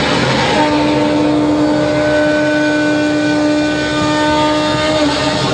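A single steady pitched tone starts about half a second in and holds for about four and a half seconds, over a loud, dense din of music and crowd noise.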